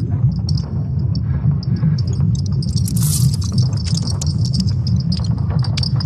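Sonified recording of Earth's electromagnetic field: a steady low rumble under a high, rapidly pulsing chirping band, with scattered crackling clicks and a brief brighter hiss about three seconds in.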